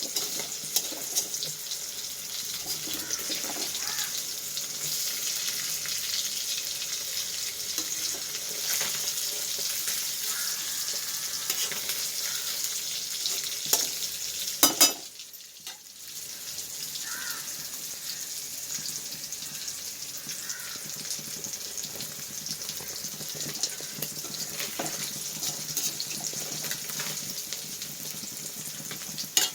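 Indian mackerel pieces shallow-frying in coconut oil over a lowered flame: a steady sizzle with scattered crackles and pops. About halfway through the sizzle flares, then drops away for about a second.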